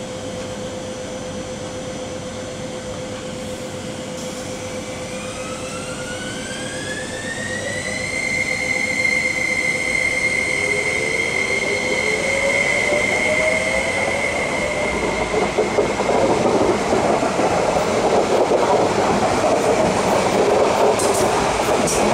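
MTR East Rail SP1900 electric train pulling away from the platform. Its traction motors whine, the whine climbing steadily in pitch over several seconds and then holding one high tone, while the rumble of wheels on rail grows louder as the train gathers speed. A few sharp clacks come near the end.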